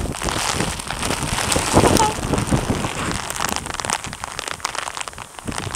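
Steady rain, with many sharp drops tapping close on the microphone.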